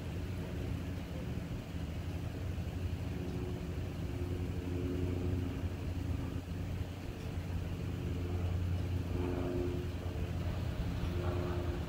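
Steady low rumble of freight-train equipment, with faint hums that come and go.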